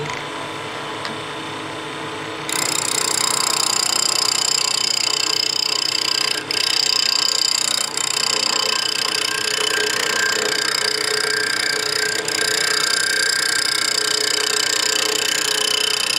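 Wood lathe running with an off-centre mounted spindle blank; about two and a half seconds in, a hand-held turning tool starts cutting the spinning wood, a steady hiss of the cut that carries on with a few momentary breaks. The cut is taking mass off one side of the blank to flatten a letter-opener blade in multi-axis turning.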